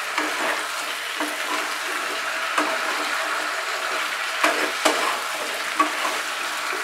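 Mixed vegetables sizzling in hot mustard oil and spice paste in a non-stick kadai over a high flame, stirred with a slotted spatula. The spatula clicks and scrapes against the pan a few times over the steady sizzle.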